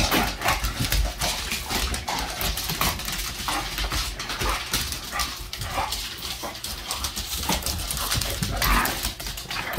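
Two American Bully dogs play-wrestling on a hardwood floor: a steady clatter of claws clicking and scrabbling on the boards, mixed with short vocal noises from the dogs.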